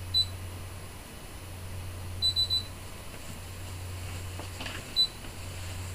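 Touchscreen key beeps from a Brother ScanNCut DX SDX1200 cutting machine as its buttons are tapped with a stylus. There are short high beeps: one near the start, three in quick succession about two seconds in, and one more near the end, over a steady low hum.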